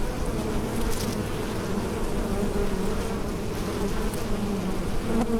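A swarm of bees buzzing at a hive: a dense, steady hum of many wings, with overlapping pitches that waver as individual bees fly near and away.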